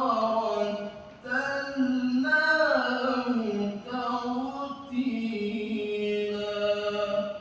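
A man reciting the Quran in melodic tilawah style, one voice holding long ornamented notes that slide between pitches, with brief pauses for breath. The voice stops near the end.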